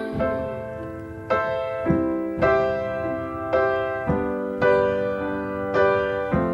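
Instrumental passage of a slow, gentle song: piano-like chords struck about every half second, each ringing out and fading before the next.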